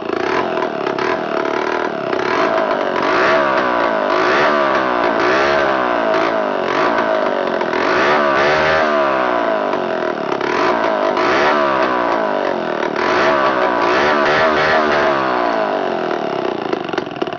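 Sixty-year-old McCulloch 1225A two-stroke chainsaw running, its engine speed rising and falling over and over, then fading near the end.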